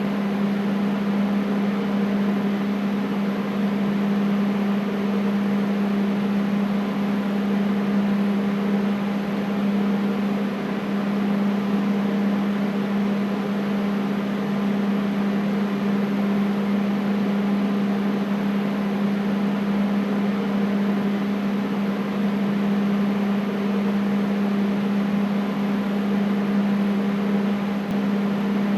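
Air conditioner running steadily: an even rush of air over a constant low hum.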